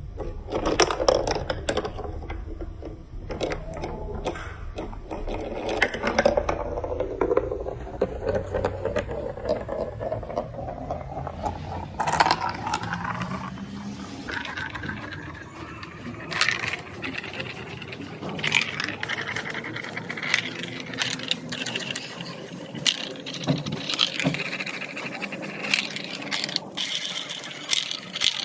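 Marbles rolling and clattering through a plastic building-block marble run: a rolling rumble that slowly rises in pitch, broken by many quick clicks and clacks as the marbles knock against the track and each other.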